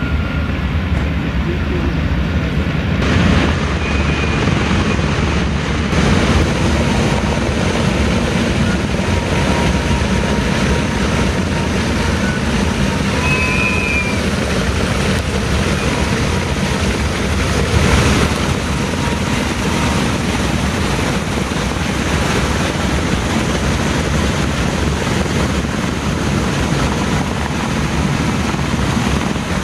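The four Wright R-3350 radial piston engines of a Lockheed L-1049 Super Constellation running at low power as it taxis, a steady, deep, even drone.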